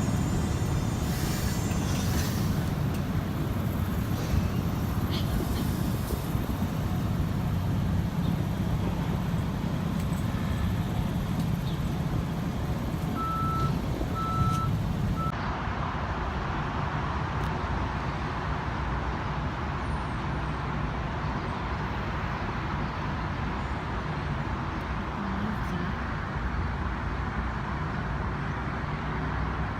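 Steady rumble of street traffic, with a few short high beeps about halfway through.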